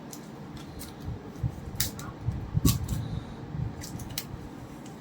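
Handling of a plastic phone cover on a shop counter: about six sharp small clicks spread out, with a few soft knocks a little past the middle.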